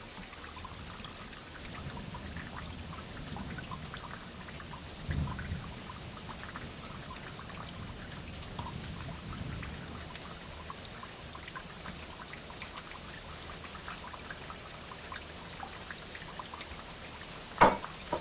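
Steady rain falling, an even hiss with scattered drop ticks. A low thud sounds about five seconds in, and a single sharp bang, the loudest sound, comes near the end.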